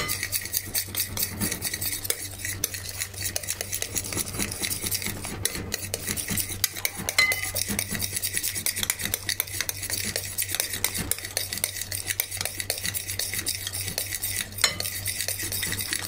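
A metal utensil beating a thin yogurt-and-egg batter in a glass bowl: fast, continuous stirring with wet slapping and rapid clinks and scrapes against the glass.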